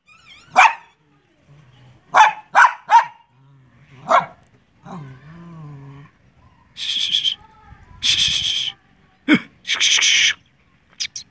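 White spitz-type dog barking in short, sharp single barks, some in quick runs of two or three, with a brief low, wavering whine between them. Three longer rasping noises come in the second half.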